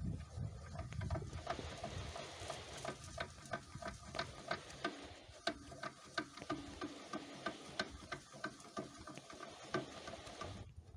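Irregular metallic clicks and taps, each with a short ring, as a V-belt is shifted between the grooves of the step pulleys on a grain auger's electric-motor drive to change the auger's speed.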